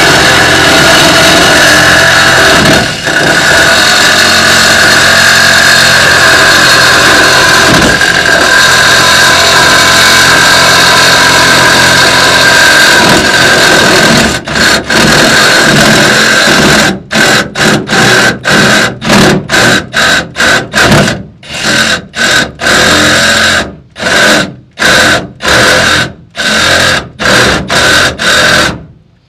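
Reciprocating saw (Sawzall) cutting through a metal fuel line. It runs steadily for about fourteen seconds, then goes in a quick series of short stop-start bursts as the trigger is worked, and stops near the end.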